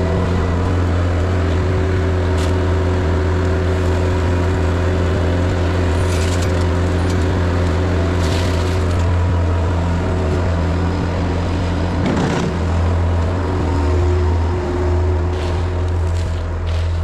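Skid steer engine running steadily, with a deep, even hum and a few short clunks.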